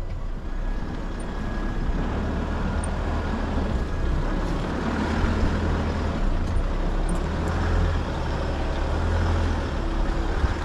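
Mazda BT-50 four-wheel-drive ute driving along a dirt track: a steady low rumble of engine and tyres under a haze of road noise.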